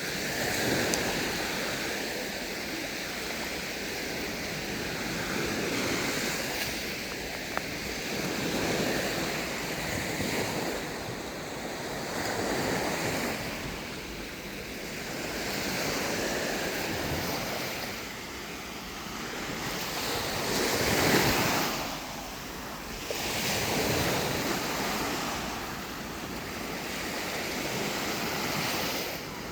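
Sea waves breaking and washing up on a beach, swelling and fading every few seconds, with one louder wave about two-thirds of the way through. Some wind on the microphone underneath.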